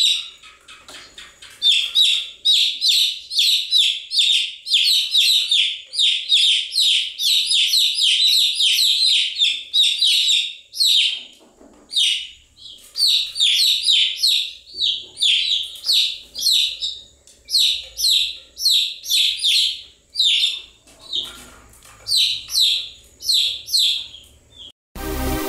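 Baby chicks peeping: quick runs of short, high chirps, several birds overlapping, with brief pauses. Electronic music cuts in abruptly in the last second.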